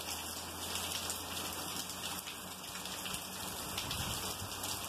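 Steady rain falling on wet concrete paving, an even hiss with scattered drops.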